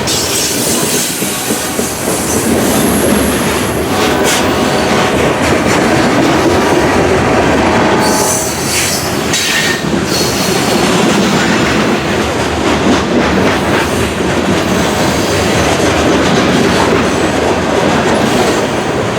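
Freight train of covered hopper cars rolling past close by: a steady, loud rumble of steel wheels on rail with clattering over the rail joints. Brief wheel squeals come about four seconds in and again around eight seconds in.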